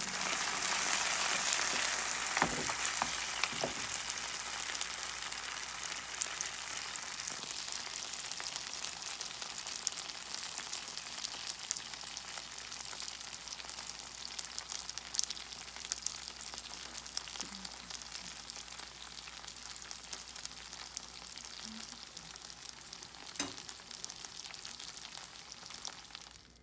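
Gyoza sizzling in a frying pan: an even hiss of frying that slowly dies down, with a few small sharp clicks.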